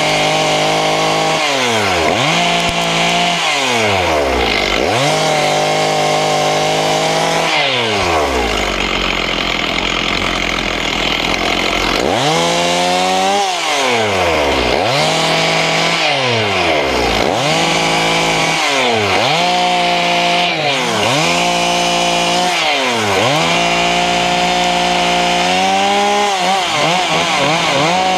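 Stihl two-stroke chainsaw revved to full throttle and let back down a dozen or so times as it cuts through branches, the pitch sagging slightly under load in the cuts. It drops to a low idle for about four seconds near the middle before revving again.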